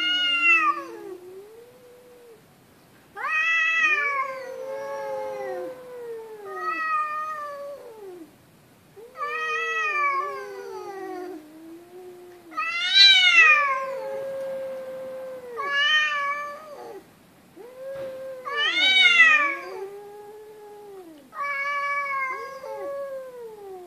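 Two cats caterwauling at each other: about seven long, drawn-out yowls with pitch that rises and falls. A low wailing voice and a higher one often overlap.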